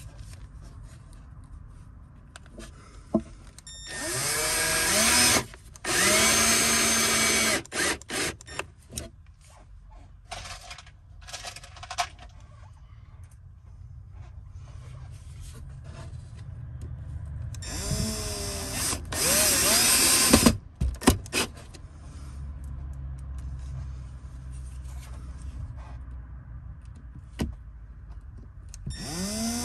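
Cordless drill-driver driving screws into a bracket, in short bursts of motor whine that rises in pitch as it spins up. There are two pairs of bursts, about a sixth of the way in and again past halfway, and another starts near the end. Small clicks and knocks of handling come between them.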